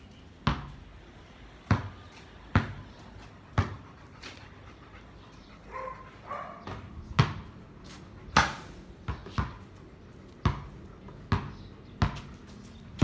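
Basketball bouncing on a concrete court, a sharp bang roughly once a second with a couple of quicker pairs, and a short call from a dog about halfway through.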